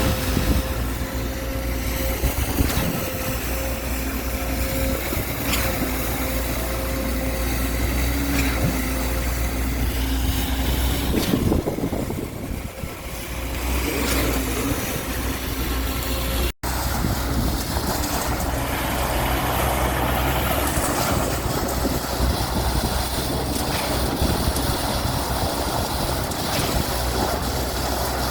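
A heavy truck's diesel engine running steadily, with a constant low hum.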